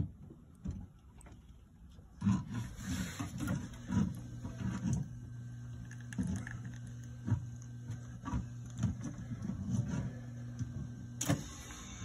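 A drinking fountain's stream running into its stainless basin and washing down the drain, starting about two seconds in with a steady electrical hum from the fountain unit under the splashing. A few short knocks come through at intervals.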